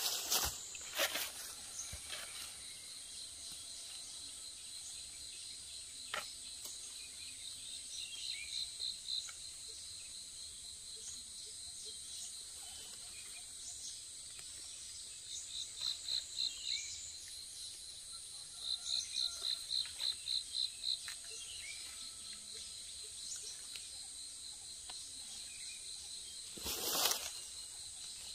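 Steady high-pitched drone of insects in the forest. Three times, a run of rapid chirping pulses stands out, about four to five a second. Near the start and again near the end, short rustles of dry leaves and soil are heard as mushrooms are plucked from the ground.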